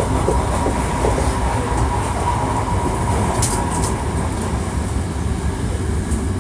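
Onboard running noise of a Hankyu 1300 series electric train: a steady low rumble of wheels on rail, with a faint steady tone in the first half and a few sharp high clicks about halfway through.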